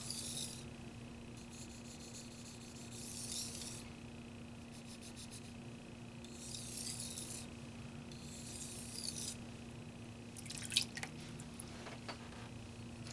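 Steel knife edge drawn across a wet 2000-grit whetstone in edge-trailing strokes: five scraping hisses, each about a second long and a couple of seconds apart. Near the end come a few sharp clicks and taps, the loudest sounds here, over a steady faint hum.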